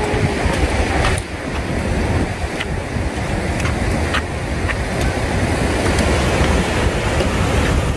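Steady roar of white water rushing over granite at the head of Nevada Fall, with sharp clicks of trekking-pole tips striking rock every second or so.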